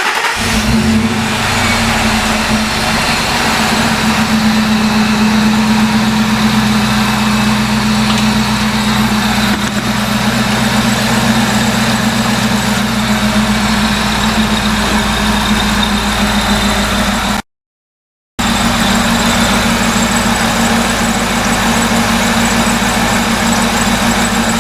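A 2002 Ford F-150 Lightning's supercharged 5.4-litre V8 catches right at the start and settles into a steady idle. About a second of dead silence cuts into it near the end.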